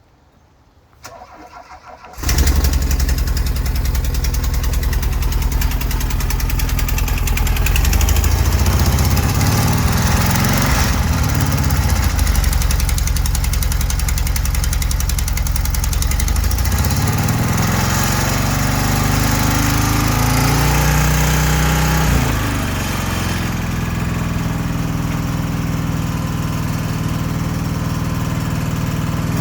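A van's engine being cranked and starting about two seconds in, then running. It is revved up and down twice, then settles to a steady idle near the end. The owner calls the noise it makes weird.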